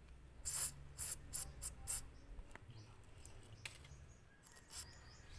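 WD-40 aerosol can spraying into a cup in about five short hissing bursts within the first two seconds, followed by a few faint clicks.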